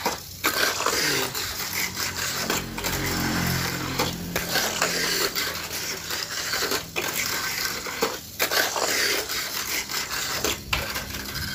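Tamiya Mini 4WD cars running and rattling along a plastic two-lane track, with hard plastic scraping and clattering. The clatter drops out briefly a few times.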